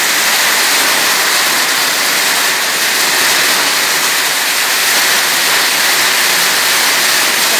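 Heavy rain pouring down, a loud, even hiss with no distinct hits.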